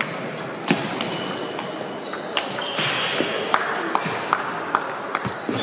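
Celluloid-type table tennis balls clicking off bats and tables from several matches at once, a dense, irregular patter of sharp clicks, some with a short high ring, over a steady hall murmur.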